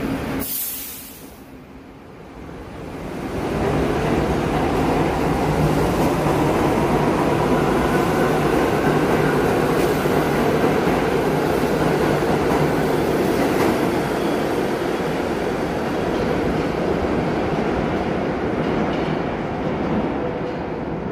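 R62A subway train pulling out of the station. A short hiss of air comes about half a second in, then a brief lull, then the train's running rumble grows loud as it accelerates past the platform. It eases off near the end as the train enters the tunnel.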